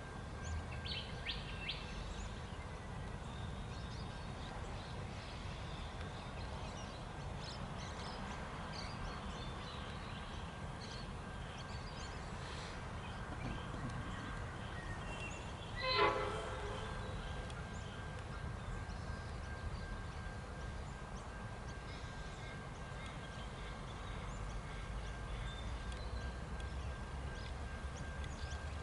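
Diesel-hauled freight train approaching, a low rumble that grows louder near the end, with one short toot of the locomotive's horn about halfway through.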